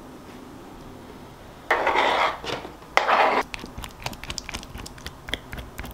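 A utensil mashing avocados in a plastic container: two loud scraping strokes about two and three seconds in, then a run of quick clicks and taps against the container.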